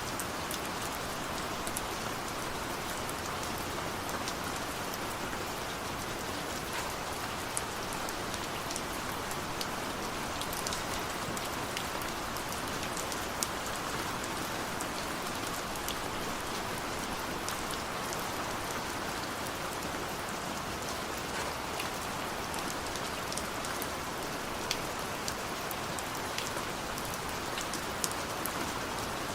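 Heavy rain falling steadily, an even hiss with scattered sharp drips of individual drops.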